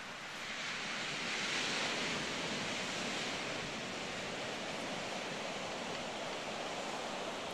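Ocean surf washing on a sandy beach: a wave's rush swells about a second in and eases off into a steady hiss.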